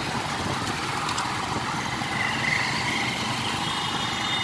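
Motorcycle engine running steadily while riding, mixed with road and wind noise.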